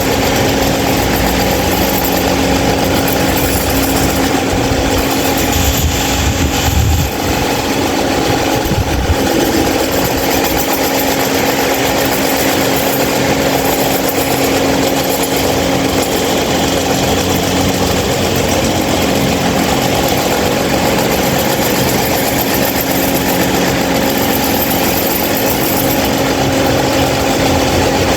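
26-inch Mahita stand fan running loudly, a steady motor hum under the rushing of its blades' air, with a brief low rumble about seven seconds in.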